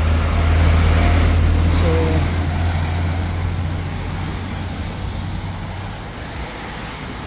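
A small truck passing close on a wet road: a low engine hum with tyre hiss, loudest about a second in and then fading as it moves away, with more traffic swishing by on the wet road.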